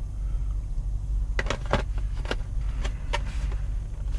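Gearwrench 3/8-inch stubby ratchet being handled, a few scattered sharp clicks over a steady low hum.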